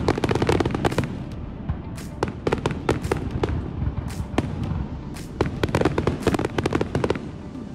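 Aerial fireworks shells bursting overhead: quick clusters of sharp bangs and crackles in about three volleys, with music playing underneath.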